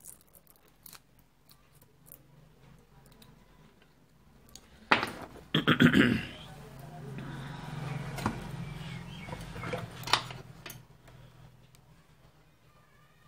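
Handling noise from a small mains transformer and its sheet-metal charger case being turned over and set down on the bench: light ticks, then loud knocks and rattles about five to six seconds in. A low steady hum follows for about four seconds and stops.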